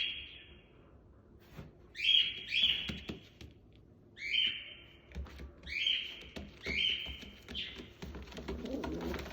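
Captive-bred birds calling: short, loud chirps, each rising then held, coming in quick pairs several times with short gaps between.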